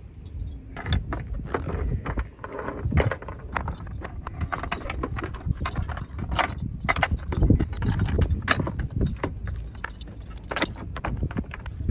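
Steel anchor chain being hauled by hand out of the anchor locker, its links clanking and rattling in quick irregular runs as they pile onto the deck.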